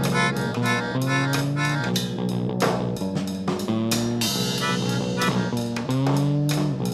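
Instrumental background music with a steady beat and low notes that slide in pitch.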